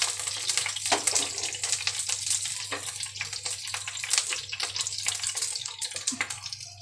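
Curry leaves sizzling and crackling in hot coconut oil in a frying pan, a steady hiss with many small pops that gets quieter toward the end.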